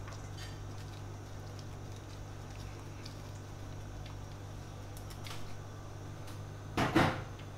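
Cooked rice tipped out of a small bowl into a stainless steel mixing bowl: faint soft rustles and light clicks over a steady low hum, then a short louder knock near the end.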